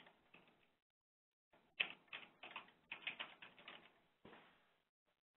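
Faint computer keyboard typing: a few keystrokes at the start, then a quick run of keystrokes from about a second and a half in until just past four seconds.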